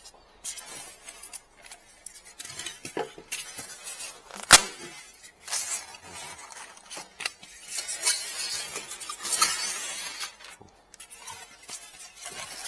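Handling noise of packing a printer into its cardboard box: packing material rustling, with scattered taps and knocks and one sharp knock about four and a half seconds in.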